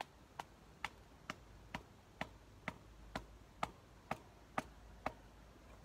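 Sharp, evenly spaced knocks, about two a second, twelve in all, stopping about five seconds in.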